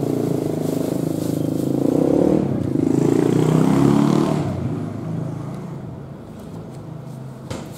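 A motor vehicle passing by: its engine grows louder to a peak about three to four seconds in, then fades away.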